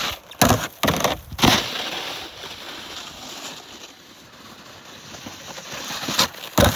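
Snowboards scraping over snow and hitting a corrugated culvert pipe: a few loud knocks and scrapes in the first second and a half, a hiss of board on snow, then two more hits near the end.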